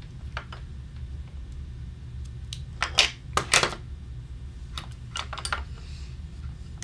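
Light metallic clicks and clinks of small hand tools and oboe keywork being handled on a workbench: a scattering of sharp ticks, the loudest two a little past halfway, over a steady low hum.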